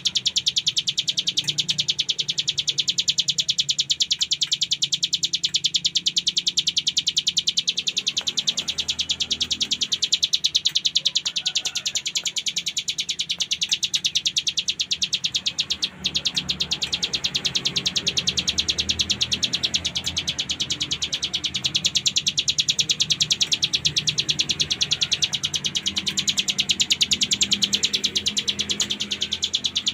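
Ciblek gunung, a mountain prinia, singing a continuous, very fast rattling trill of high notes, the sustained 'ngebren' song prized in trained songbirds. It breaks off for an instant about halfway through.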